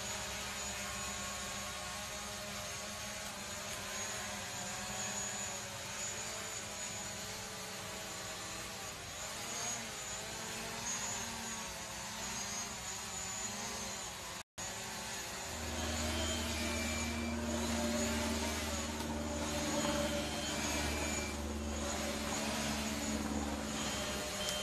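Quadcopter drone's propellers running with a steady whine and hum. After a brief break about halfway through, the sound becomes louder with a stronger low hum as the drone comes close. A few short high tones sound in the second half.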